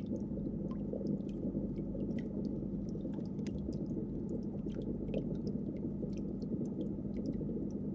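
Steady low hum and rumble, with many small scattered clicks and crackles.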